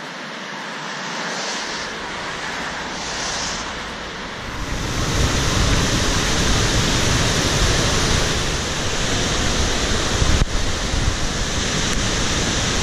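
Rushing water of a waterfall and its rocky cascades: a dense, steady rush that comes in strongly about four and a half seconds in. Before that there is a lighter hiss with two brief swells, and one sharp click comes near the end.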